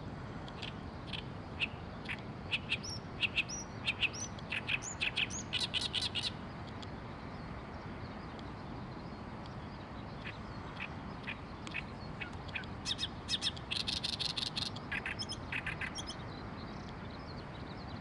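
Oriental reed warbler singing: two bouts of rapid, chattering song made of short sharp notes repeated in quick succession, with a pause of a few seconds between them.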